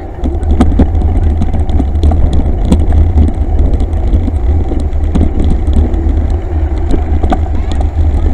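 Low wind rumble on the microphone and rattling knocks of a handlebar-mounted camera jolting over a gravel path while riding.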